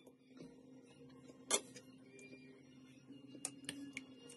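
A few faint, sharp clicks of a serving utensil against a ceramic soup bowl as food is set into it. The loudest click comes about a second and a half in, and several more come close together near the end, over a steady low hum.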